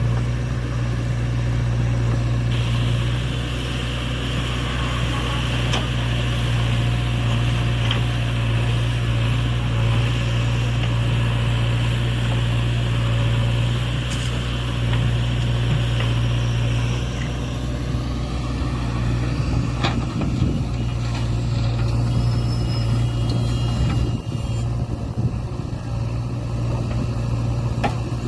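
Heavy diesel engine running steadily, a deep even drone, with a few sharp knocks and a hiss that dies away past the halfway mark.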